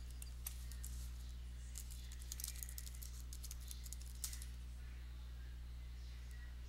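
Faint typing on a computer keyboard: a run of quick clicks, thickest about two to three seconds in and ending by about four and a half seconds, over a steady low hum.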